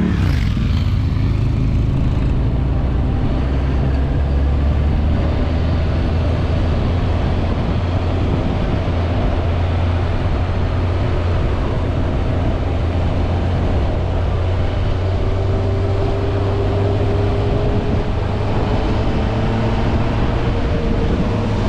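Motorcycle engine running steadily under way, its pitch climbing slowly over the last several seconds.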